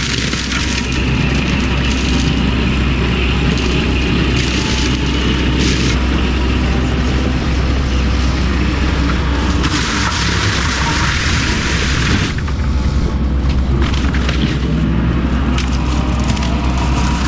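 Fecon Bullhog forestry mulching head on a Cat 308 excavator grinding through brush and wood, its spinning carbide-toothed drum giving a steady deep drone under constant cracking and shredding. A louder burst of chipping comes about ten seconds in and lasts a couple of seconds.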